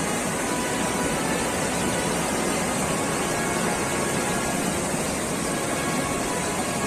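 Fast-flowing muddy floodwater rushing as a torrent, a steady, full rushing noise with no let-up.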